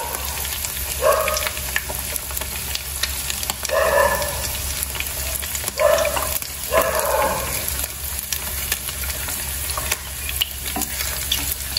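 Skin-on pork pieces frying in hot oil in a pan, sizzling with constant crackling pops as the skin makes the oil spatter. A few louder strokes of a utensil moving the pieces in the pan come through, four times.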